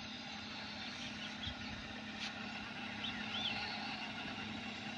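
A small sedan's engine running steadily at low speed as the car creeps backwards over a dirt track. A few short bird chirps come over it about a second in and again about three seconds in, with a single click a little past two seconds.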